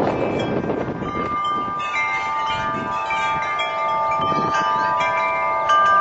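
Wind chimes ringing in gusty wind, several notes overlapping and fresh strikes sounding at irregular moments, over the rush of wind on the microphone, strongest in the first second.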